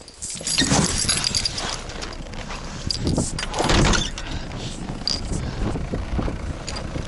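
Keys jangling amid rustling and handling noises, with louder noisy bursts about a second in and just before four seconds in.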